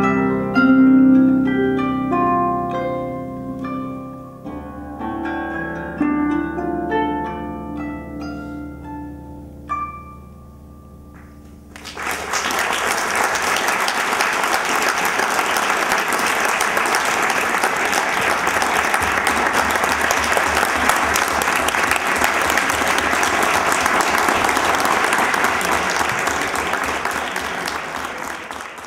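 Concert harp played solo, single plucked notes ringing and dying away until about eleven seconds in. Then an audience applauds steadily, fading out at the very end.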